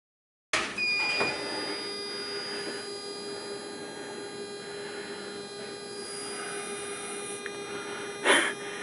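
Steady electrical hum and high whine of a tram cab's powered-up equipment, with a short high beep about a second in and a brief noise near the end.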